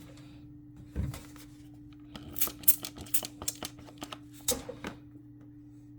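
A run of sharp clicks and taps over a steady low hum, with a single knock about a second in.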